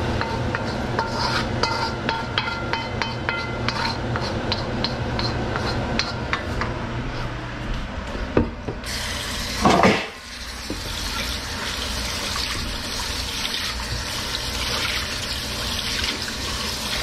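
Spoon scraping and knocking against a carbon steel wok as cooked ground meat and peas are scooped out, with short metallic ringing. About nine seconds in there is a brief loud rush, then tap water runs steadily into the wok.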